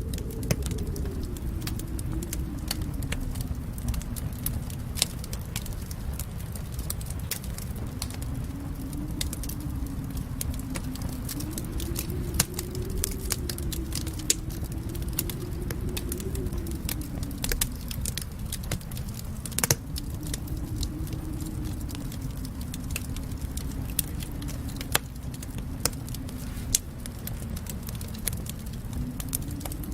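Fireplace fire crackling: frequent irregular sharp pops and snaps over a low, steady rumble, with one louder pop a little after the middle.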